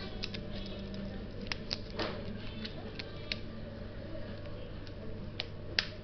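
Scattered sharp clicks and light crackles of a small item being handled and folded in the fingers, coming irregularly, with the loudest click near the end. A steady low hum runs underneath.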